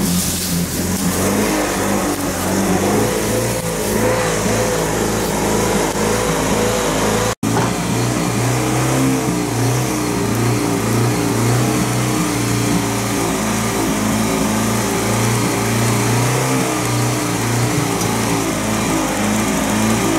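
Vehicle engine running steadily, its pitch wavering slightly as the revs rise and fall. The sound cuts out for an instant a little past a third of the way in.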